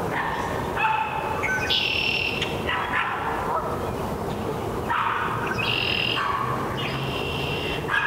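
Canada geese honking, several calls from more than one bird overlapping, in two bouts with a short lull in the middle, over a steady background hiss.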